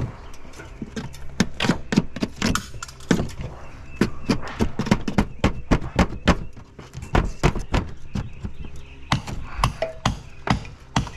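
Rapid, irregular knocks and clicks from hand work on metal gutter and siding pieces, several a second with short gaps, over a faint steady hum.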